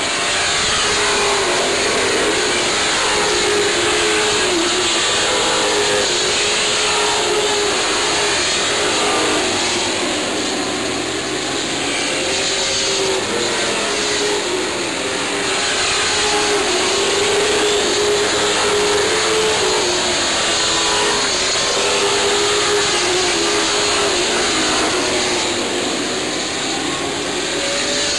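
A pack of Sportsman stock cars racing on a short track. Several engines rev up and down together as the cars lap, over a steady wash of engine and tyre noise.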